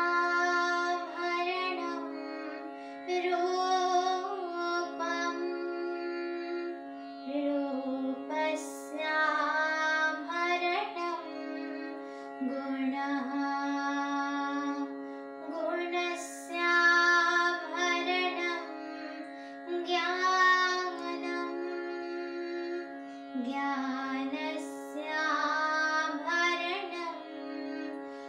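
A girl singing a slow melody with held, ornamented notes over a steady, unchanging drone accompaniment.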